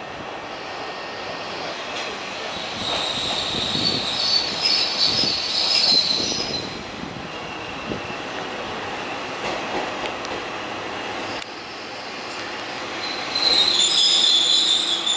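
Kanto Railway KiHa 2201 diesel railcar pulling into a station over a steady rumble. Its wheels give a high-pitched squeal about three seconds in that lasts a few seconds, and again, louder, near the end.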